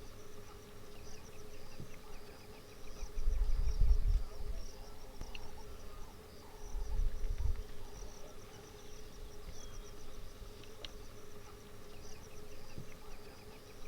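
Insects chirping in a steady repeated pattern over a constant drone, broken by two deep rumbles, about three seconds in and again about six and a half seconds in.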